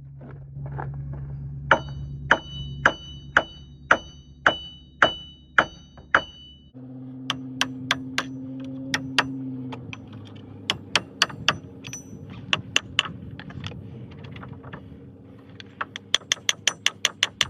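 Hammer blows on metal, about two a second with a ringing note after each. Later comes a faster run of taps near the end, over a steady low hum: the old front hub bearing assembly being knocked loose.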